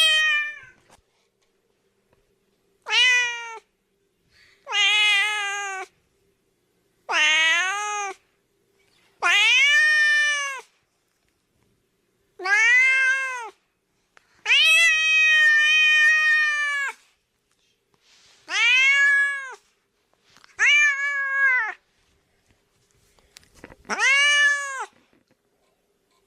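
Domestic cat meowing over and over: about ten drawn-out meows, each rising then falling in pitch, a second or two apart. The longest, near the middle, lasts about two seconds.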